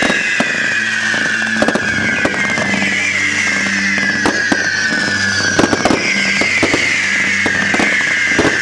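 Daytime ground fireworks going off in a row: several long overlapping whistles that fall slowly in pitch, one after another, with scattered sharp cracks and pops throughout.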